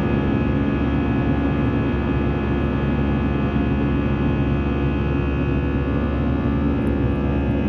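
Airbus A320's jet engines heard from inside the passenger cabin: a steady, unchanging noise layered with a hum of several steady tones.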